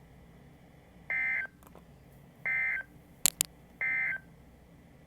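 Emergency Alert System end-of-message signal on NOAA Weather Radio: three short buzzy data bursts about 1.3 s apart, marking the end of the severe thunderstorm warning message. Two sharp clicks come in quick succession between the second and third bursts.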